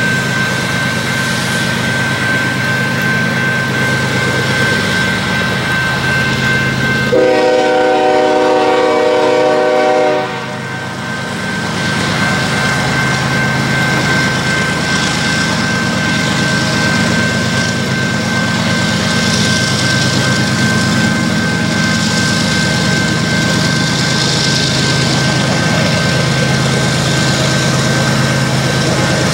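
Canadian Pacific ES44AC diesel locomotives working hard under load, hauling a heavy freight up a grade, their engines running steadily. About seven seconds in, one horn blast lasts about three seconds.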